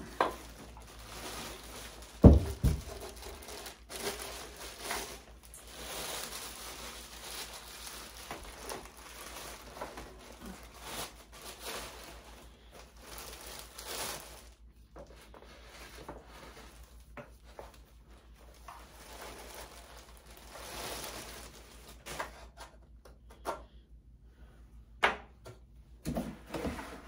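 Plastic shipping bag crinkling and rustling as a pool pre-filter is unwrapped and handled, with one loud thump a couple of seconds in and a few sharper knocks near the end.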